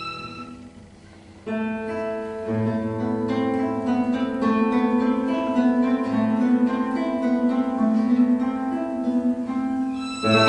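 Acoustic guitar playing a solo passage of plucked notes over low bass notes, coming in about a second and a half in after a violin note dies away. The violin comes back in with a loud bowed note just before the end.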